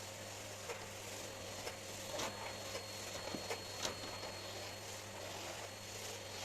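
Steady whirring hiss with a low hum, with light clicks and taps scattered through it from household cleaning.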